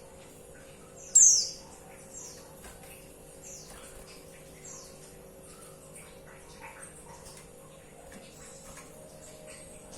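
Female white-eye (pleci) calling: short, high, downward-sliding chirps repeated about once a second, one much louder than the rest about a second in. A faint steady hum lies underneath.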